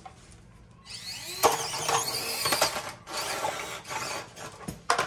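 Two mini RC crawlers, an Axial SCX24 and a Traxxas TRX4m, pushing against each other on concrete. Their small electric motors whine, rising and falling in pitch, and their tyres scrabble, with sharp plastic knocks as the trucks collide, starting about a second in. It stops just before the end.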